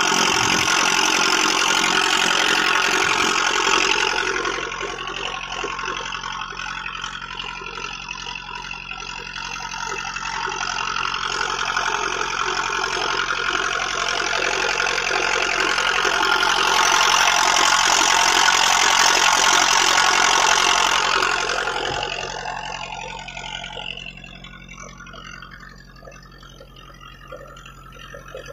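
Wooden fishing boat's engine running steadily under way, over the rush of water and wind. The rushing fades about three-quarters of the way through, leaving the engine's drone.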